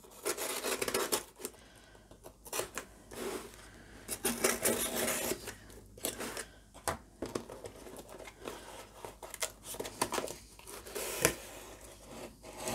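Craft knife slitting the paper tape on a cardboard mailer box, with scraping and rustling of the cardboard as the box is handled and its lid slid open, and a sharp click about 11 seconds in.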